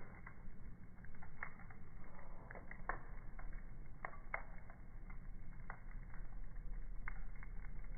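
Wood fire crackling in a fireplace, with irregular sharp pops and snaps over a low steady background.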